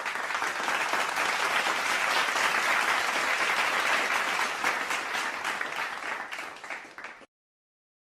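Crowd applause: many people clapping, a dense patter that swells and then thins out before cutting off about seven seconds in.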